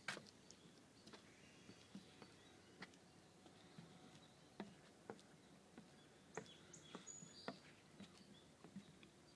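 Faint footsteps on a dirt trail, irregular crunching steps, with a few short bird chirps in the background.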